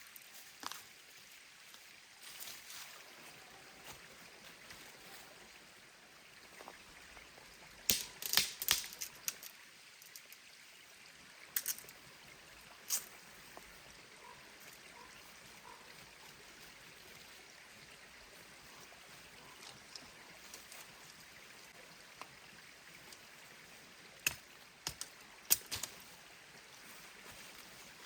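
Small stream running steadily, with scattered sharp clicks and knocks: a quick cluster about eight seconds in and a few single ones later.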